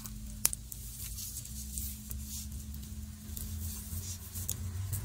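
Faint handling of test probes on a cable connector: a single sharp click about half a second in, over a low steady hum.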